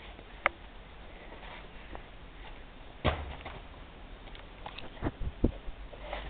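Scattered sharp clicks and knocks close to a handheld camera as a dog nuzzles right up against it, with a quick cluster of louder, deeper bumps near the end.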